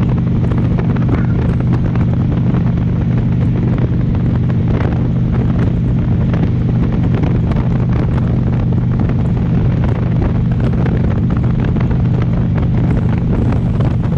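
Harley-Davidson V-twin motorcycle running at a steady cruise, with wind buffeting the microphone.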